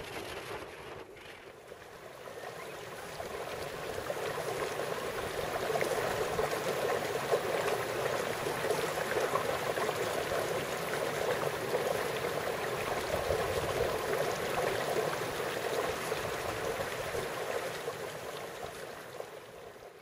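Steady rushing of running water, swelling in over the first few seconds and holding even until it fades out at the very end.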